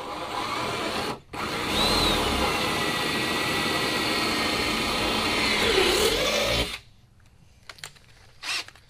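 Cordless drill boring a small hole through a carbon fiber trunk lid. It runs about a second, stops for a moment, then runs steadily for about five seconds, its pitch dipping briefly near the end before it stops.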